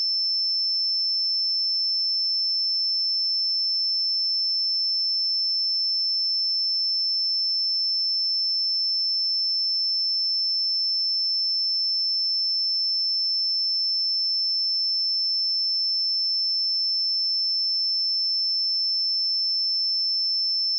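A pure 5308 Hz sine-wave test tone, a single steady high-pitched note held at constant level.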